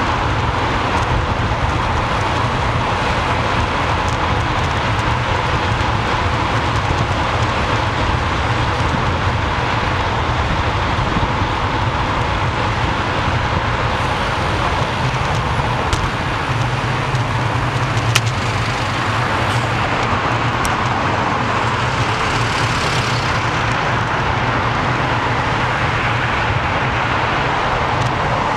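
Steady rush of wind on the microphone and road traffic noise while cycling at about 30–45 km/h among cars, with one sharp click about 18 seconds in.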